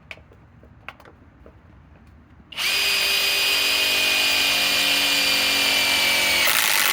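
SKIL PWRCORE 20 cordless impact driver driving a #10 one-inch sheet metal screw: a few light clicks, then about two and a half seconds in the driver starts with a steady high whine over a harsh mechanical noise. Near the end the whine drops away while the harsh noise continues.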